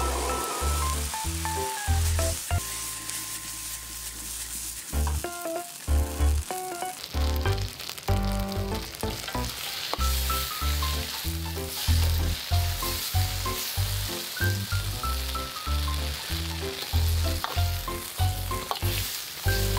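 Squid, onion and black bean sauce sizzling in a hot wok as a metal ladle stirs and tosses it, the sizzle getting louder about a third of the way in. Background music with a steady run of bass notes plays throughout.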